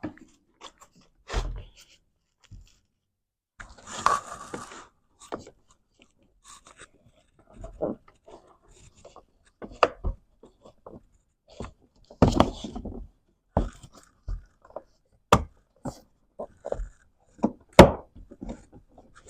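Plastic car door trim pieces being handled and pressed into place: scattered sharp clicks, knocks and taps, with a scraping rustle about four seconds in.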